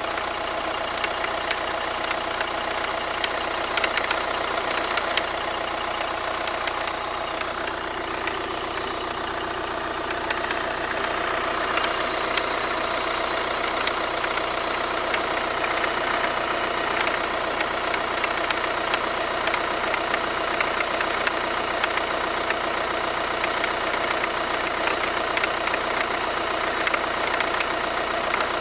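Audi A4 2.0 TDI four-cylinder turbodiesel engine idling steadily, with a fast ticking knock from under the bonnet.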